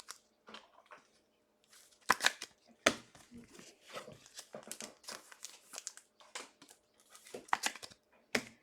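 Trading cards and plastic packaging being handled: irregular crinkling and rustling with several sharp snaps or taps, the loudest about two and three seconds in and again near the end.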